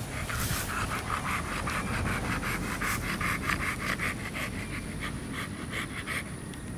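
American Bully dog panting fast, about four or five quick breaths a second, stopping near the end.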